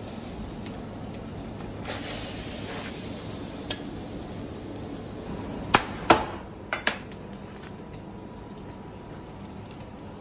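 Knife work on a wooden cutting board: a scrape about two seconds in, then a few sharp taps and knocks, the loudest clustered between about six and seven seconds. A steady kitchen background noise runs under them.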